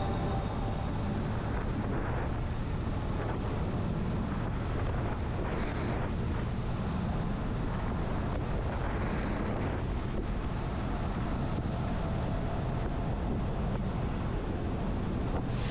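Riding noise from a BMW R1200C cruising steadily: its boxer twin engine running under heavy wind rush on the helmet-mounted microphone.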